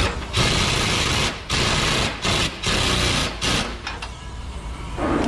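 Pneumatic impact wrench run in a string of short bursts, each under a second, stopping about four seconds in, on the bolts of a DAF truck's cab shock absorbers. Under it is a steady low hum.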